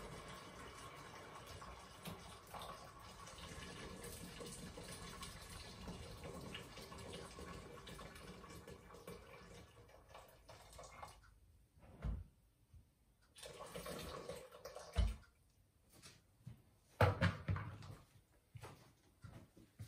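Water pouring steadily from an electric kettle into a deep pot. After about ten seconds the pouring stops, and a few separate knocks and thumps follow, the loudest near the end.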